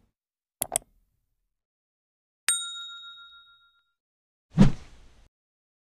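Sound effects of a YouTube subscribe-button animation: two quick mouse clicks, then a single bright bell ding that rings out for about a second. A short dull pop follows near the end.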